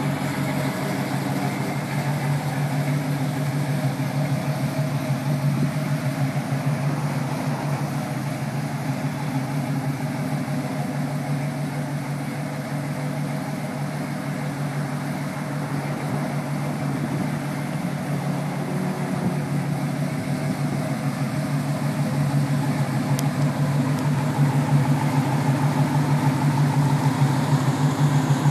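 1978 Pontiac Trans Am's V8 engine idling steadily, growing louder near the end.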